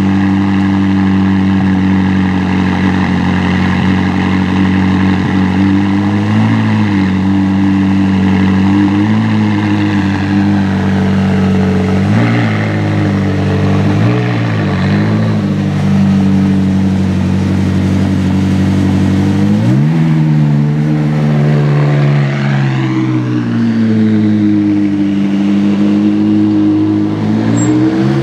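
McLaren 675LT's twin-turbo V8 idling steadily, with a few short blips of the throttle. About twenty seconds in, the revs rise and then fall and climb again as the car moves off.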